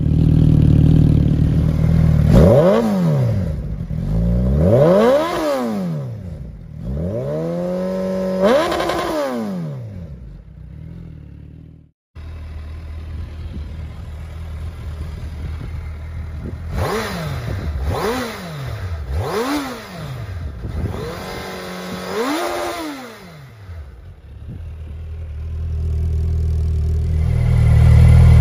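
Suzuki Hayabusa inline-four running through aftermarket slip-on exhausts, idling and being blipped. There are three throttle blips, the last held briefly at higher revs, then an abrupt cut to a second exhaust. On that one there are four quick blips, and the idle grows louder near the end.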